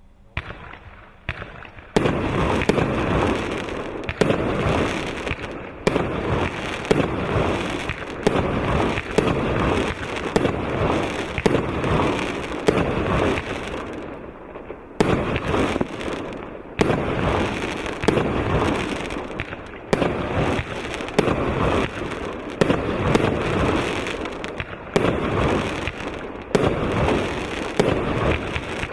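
A 1-inch, 101-shot fireworks cake firing: after a couple of single pops, a rapid, continuous barrage of shots starts about two seconds in. It eases briefly about halfway through, then picks up again.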